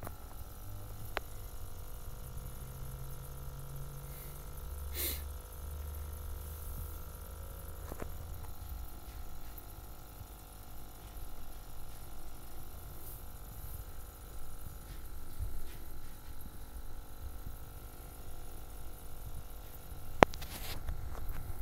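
Steady low mechanical hum with faint steady tones above it, broken by a few light clicks and one sharp click near the end.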